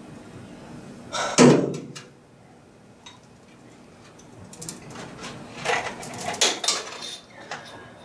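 Metal tools and parts clanking in a car's engine bay during hand work: one loud clatter about a second and a half in, then a run of lighter clicks and knocks from about five seconds on.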